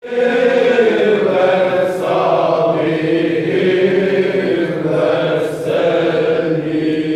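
Dervishes chanting a dhikr together: a group of men's voices in a steady, sustained chant.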